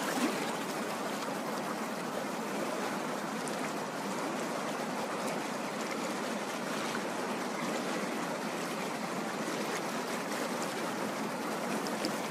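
Steady rush of river water along the hull of a moving boat.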